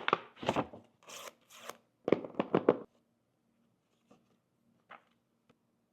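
Packaging being handled and opened: a quick run of knocks and short papery rustles and tears over the first three seconds, then a few faint clicks.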